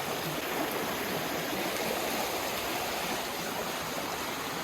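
Rain-swollen creek running fast, a steady rush of water.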